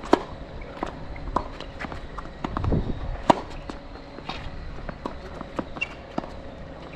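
Tennis rally: sharp pops of the ball struck by rackets, the two loudest about three seconds apart, with lighter taps of bounces and footsteps in between. Wind rumbles on the microphone briefly near the middle.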